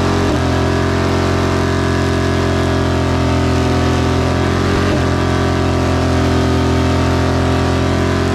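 Vehicle engine held at a steady speed during a burnout, its note unchanging, with a steady hiss over it.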